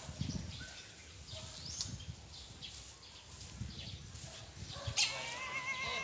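An animal call with a wavering pitch starts about five seconds in and carries on, over low rustling and a few faint chirps.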